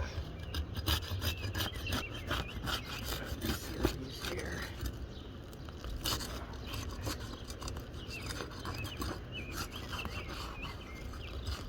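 Asphalt roof shingle being worked loose and pulled out from under the course above: repeated gritty scraping and rubbing, with short clicks and crackles.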